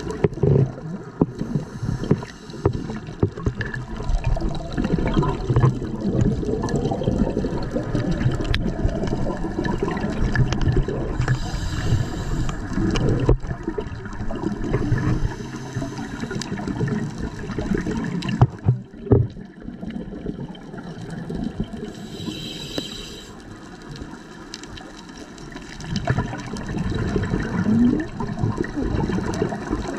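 Scuba diver breathing through a regulator underwater: a long gurgle of exhaled bubbles, broken twice by the short hiss of an inhalation, about ten seconds apart.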